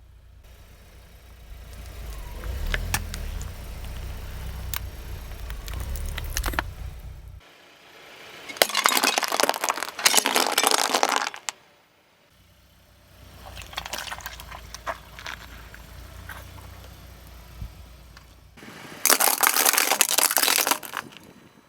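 A car rolling slowly over drinks containers and crushing them, twice: a low engine rumble as it creeps forward, then a loud crackling, breaking crunch, about nine seconds in and again near the end.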